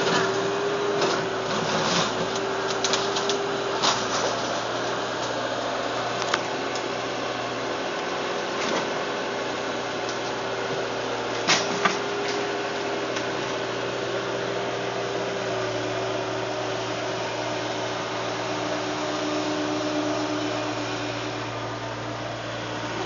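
A machine's engine running steadily with a held humming note, with scattered knocks and clacks and two sharp knocks close together about halfway through.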